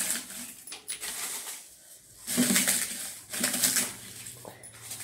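Crisp roasted dry red chillies crackling and rustling as they are pressed by hand into a stainless steel mixer-grinder jar, in short bursts.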